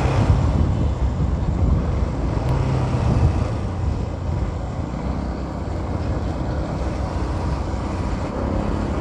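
Motorcycle engine running steadily at cruising speed, heard from the rider's seat, with road and wind noise.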